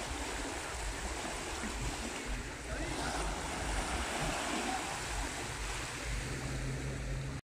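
Small sea waves washing in the shallows, a steady wash of surf noise with a low rumble of wind on the microphone.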